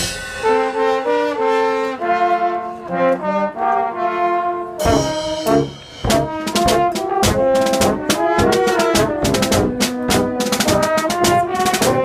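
A horn ensemble plays held chords, then breaks briefly about halfway through and comes back with a quicker passage over a steady drum beat.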